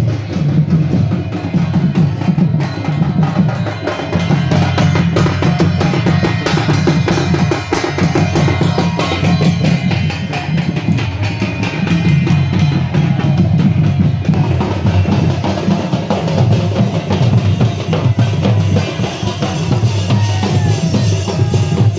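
Drum-led procession music: many fast, evenly repeated percussion strokes over a deep pulsing beat. A brighter hiss joins about two-thirds of the way through.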